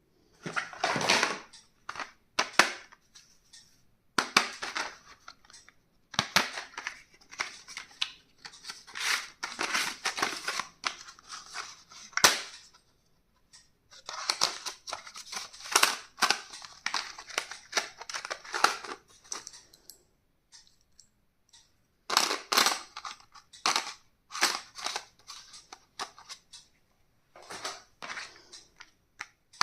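Stationery packaging being opened by hand: plastic crinkling and tearing in bursts of a few seconds each, broken by short pauses and sharp snapping clicks.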